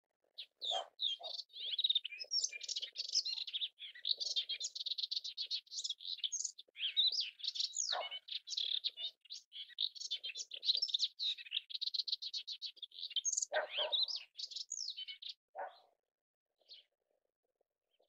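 Melodious warbler singing a fast, continuous, babbling song of varied chirping notes, which stops about two seconds before the end, followed by a few faint notes.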